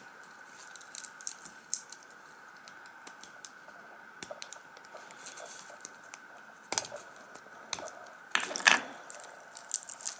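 Small sharp clicks and taps of hands working a Pro Micro board and its pin headers free of the hot-swap sockets, with a brief rustle about eight seconds in. A faint steady high tone lies under it.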